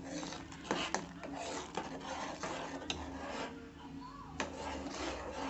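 Steel spoon stirring thick, boiling dal in a pressure cooker pan, scraping along the pot and knocking against its side a few times.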